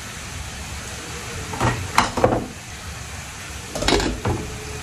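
Metal lid being set on a saucepan, clinking and knocking against the rim about two seconds in and again near four seconds, over a steady sizzle of pork frying in a pan.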